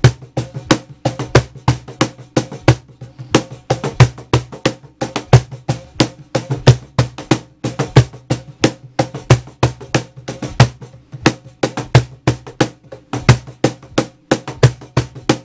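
Rapid, irregular sharp clicks, several a second, over a steady low hum.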